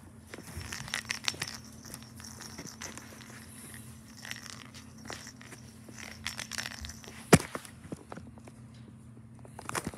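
Soft rustling and scattered light clicks as a tabby cat paws at and wrestles a yarn ball on a carpet rug, with one sharp click about seven seconds in, over a faint steady low hum.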